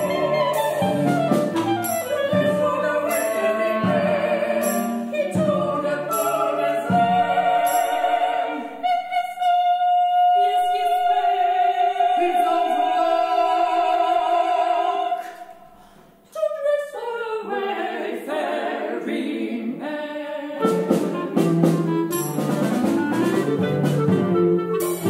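Chamber opera music from a live performance: singing with a small instrumental ensemble. Around the middle there is a long held note with vibrato, and just past halfway the music drops briefly almost to silence before the accompaniment comes back fuller near the end.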